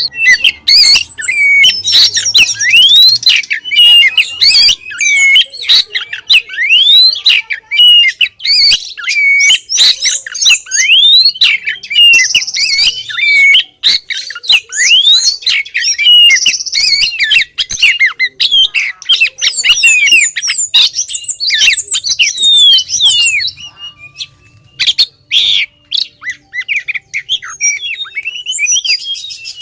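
Female oriental magpie-robin calling in a rapid, busy run of short scratchy notes and quick rising and falling whistles. This is the female's breeding-condition call to a male, used as a lure. The calling thins to scattered notes near the end.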